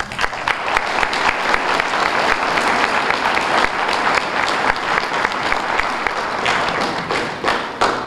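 Audience applauding, a dense spread of clapping that swells in the first second and dies away near the end.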